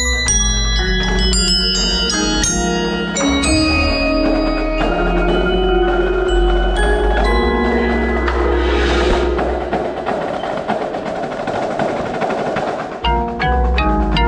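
Indoor percussion ensemble playing mallet music: close, quick xylophone notes and bright ringing crotales struck with hard mallets, over marimbas and a steady deep low part. A hazy cymbal-like wash swells in the middle, the sound briefly thins just before the end, and then quick strikes resume.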